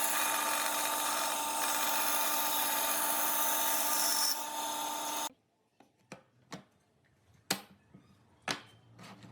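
An electric power tool running steadily on wood, cutting off suddenly about five seconds in. Then several sharp wooden knocks and taps, spaced irregularly.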